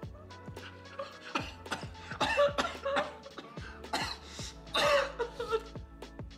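Fits of hard, breathless laughter broken by coughing, over soft background music.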